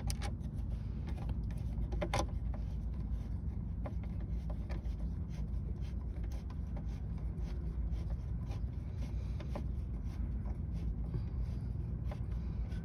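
Phillips screwdriver turning a screw into the plastic dash trim panel: small scraping clicks and ticks, with a sharper click about two seconds in, over a steady low hum.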